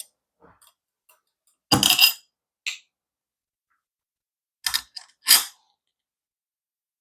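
Metal smart deadbolt parts and screws clicking and clattering as they are handled and lined up on the door. There are a few sharp clicks, the loudest about two seconds in and another group around five seconds.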